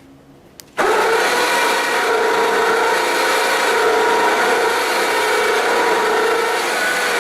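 Electric winch motor running under load, a steady whine over gear noise, pulling a tractor up into a pickup truck bed. It starts abruptly about a second in and cuts off near the end.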